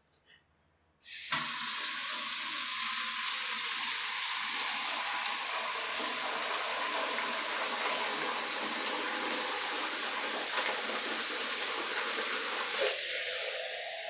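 Bathroom tap turned on about a second in, its stream of water splashing steadily into a half-filled plastic bucket. Near the end the sound changes as a plastic mug is held into the stream.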